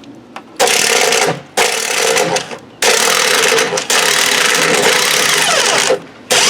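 Electric impact wrench hammering on rusted lawnmower motor mount bolts, running in four bursts of about one to two seconds with short pauses, and starting again near the end.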